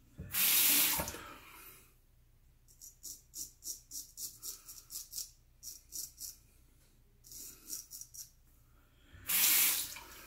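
A sink tap runs for about a second and a half. Then a Gold Monkey straight razor scrapes through lathered stubble in a run of short strokes, about three a second, with a few more after a pause. The tap runs again briefly near the end.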